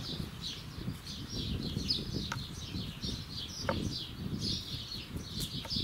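Small birds chirping rapidly and continuously, over a low background rumble, with a couple of soft knocks about two and four seconds in.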